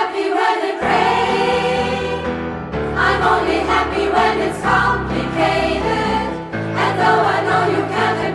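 Women's choir singing in several parts, sustained sung chords throughout.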